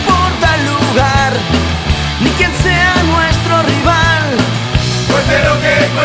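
Rock-style football club anthem: a singer sings a line in Spanish over a band with drums and bass.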